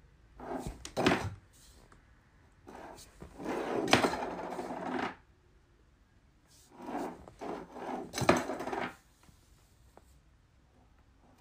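A cat nosing at a tin can and a plastic bag on a wooden shelf: four short bouts of scraping and rustling, three of them with a sharp knock.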